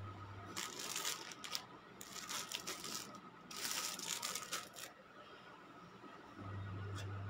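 Plastic garment bags crinkling in three bursts as packaged clothes are handled. A low steady hum drops out about half a second in and returns near the end.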